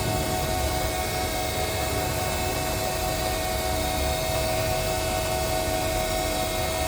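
Nakamura-Tome TMC-15 CNC lathe running, a steady whine over a low rumble.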